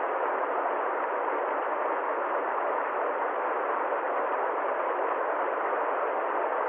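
Steady, even rushing noise with no tones, beats or changes, filling the middle pitches and cut off sharply below and above.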